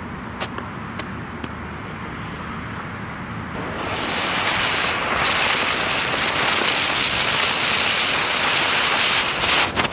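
Ground-spinner firework (Rubro Spinning Blitz). A few sharp pops come first. About four seconds in, the spinner ignites and whirls on the ground with a loud, steady hiss of spraying sparks. Near the end sharp cracks return as it turns into its strobing finish.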